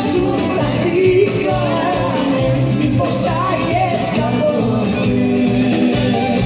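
A live band playing Greek popular music, with bouzouki, electric guitar and drums, under a woman's lead vocal and backing singers.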